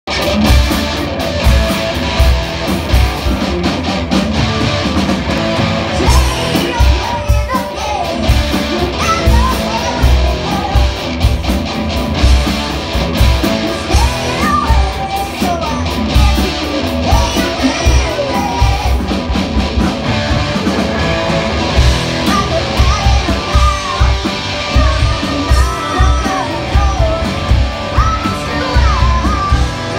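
Live rock band playing: electric guitars, bass and drums with a steady kick-drum beat, and a singer's voice over the top.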